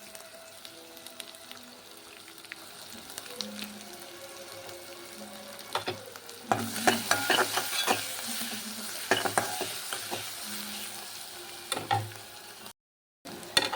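Chicken frying in oil with spices in a pan, sizzling, with a spatula stirring and scraping against the pan. The sizzle and scraping grow louder from about six and a half seconds in, and the sound cuts out briefly near the end.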